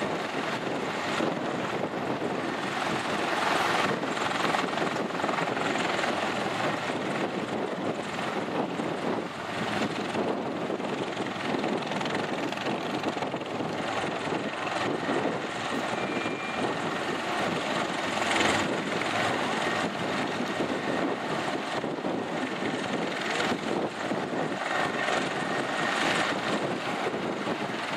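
Twin-engine Bell 412 rescue helicopter running steadily while parked on the ground, its turbines and turning rotor making a continuous, even noise.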